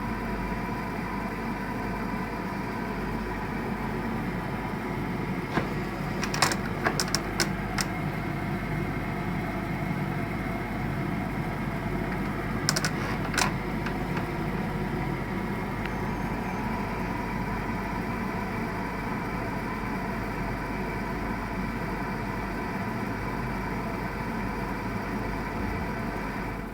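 BAXI Main 5 14F gas boiler running with a steady hum, broken by sharp knocks from its gas valve: a quick run of about six around six to eight seconds in, and two more about thirteen seconds in.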